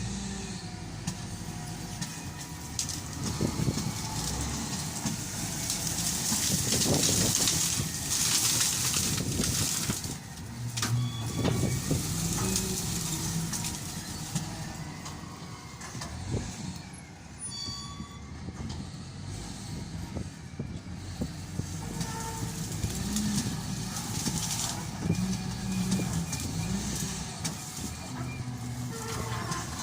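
SDLG wheel loader's diesel engine running under working load, with a long hiss of air or hydraulics about six to ten seconds in and a short beeping tone near the middle.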